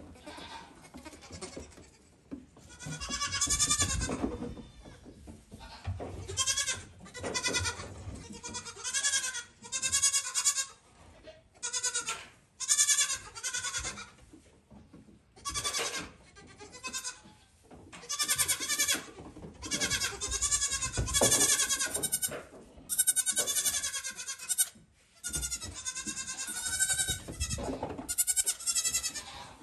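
Goat kids bleating over and over, one high, wavering bleat after another with short gaps between them, about twenty calls in all.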